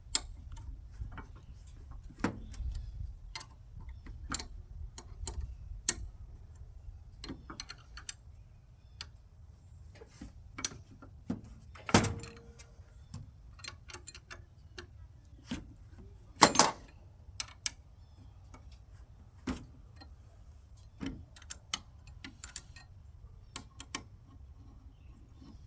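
Scattered, irregular clicks and light knocks of small parts and hardware being handled, with a couple of louder knocks about halfway and two-thirds of the way through.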